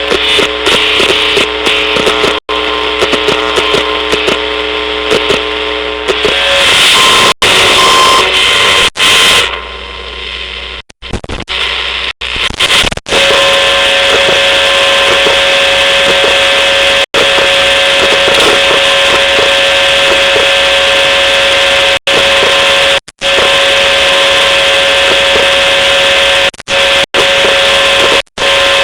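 Electronic buzzing and hiss from a laptop hard drive's electromagnetic emissions, with steady whining tones. The sound shifts and crackles between about 6 and 13 seconds in, then settles into a steady loud buzz with one strong tone, broken by several sudden brief cut-outs.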